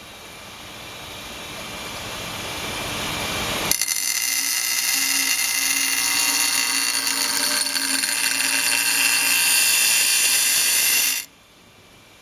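Powered sharpening grinder running, its noise building over the first few seconds. About four seconds in, the steel of a chef's knife meets the abrasive with a loud, high grinding hiss, grinding the bolster down so the blade can be sharpened to the heel. The grinding cuts off abruptly about a second before the end.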